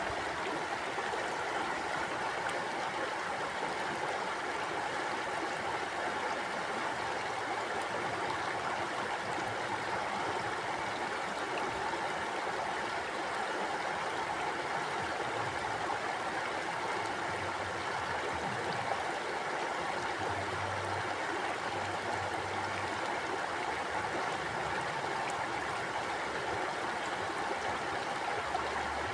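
Mountain river flowing over rocks: a steady, even rush of water with no change throughout.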